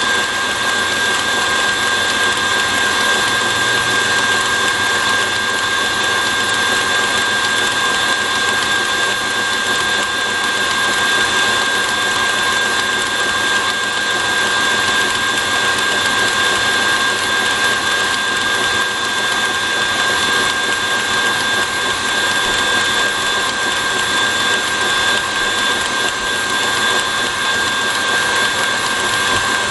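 KitchenAid stand mixer running steadily on high, its wire whisk beating thick marshmallow mixture in the steel bowl: a steady motor whine over an even whir.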